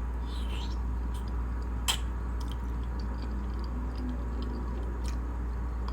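Wet mouth sounds of someone chewing macaroni and cheese: soft squelches and a few sharp clicks, the loudest about two seconds in, over a steady low hum.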